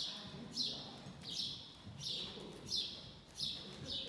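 Horse cantering on sand arena footing: a soft hiss with each stride, repeating about every two-thirds of a second in the canter's rhythm, with faint dull hoof thuds underneath.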